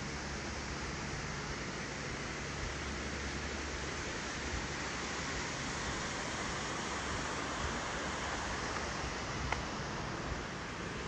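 A steady rushing noise with a faint low hum underneath, unchanging throughout.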